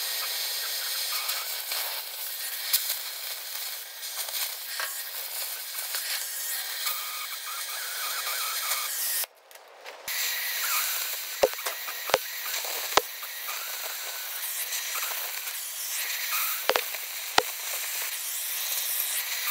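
Oxy-fuel gas cutting torch hissing steadily as it cuts steel stops off a bucket. The hiss breaks off for a moment a little before halfway, and a few sharp pops stand out in the second half.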